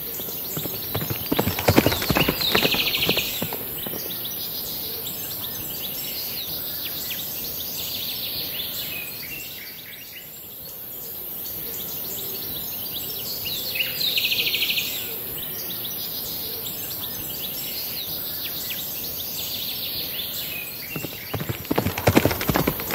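Electric walking toy horse playing its rapid clip-clop hoof sound near the start and again near the end. In between, with the toy stopped, there is only a steady outdoor hiss.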